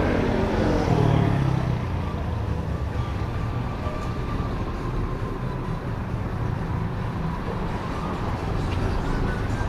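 Road traffic: a vehicle engine passes just after the start, its pitch falling as it goes by. A steady traffic rumble follows, and another vehicle approaches near the end.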